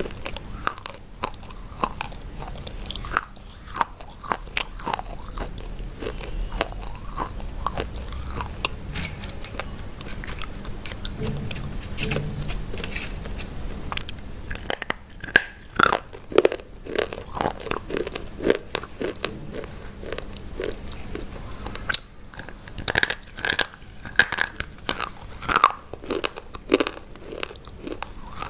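Close-miked biting and chewing of hard, brittle white sticks: sharp crunches as pieces are bitten off, then repeated crunching chews, louder in the second half.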